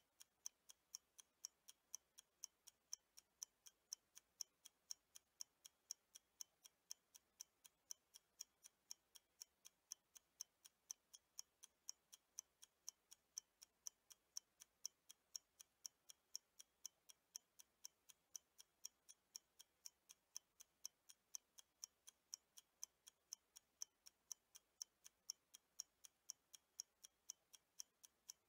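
Faint clock ticking sound effect, a steady tick-tock at about two ticks a second, running with a countdown timer.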